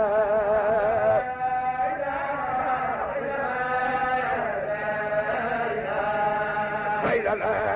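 A single voice chanting a devotional Sufi chant in long held, wavering notes that slide from one pitch to the next, heard through muffled, narrow-band old recording.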